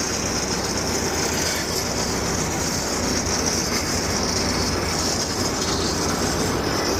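An engine running steadily: a constant low drone with a steady high hiss over it.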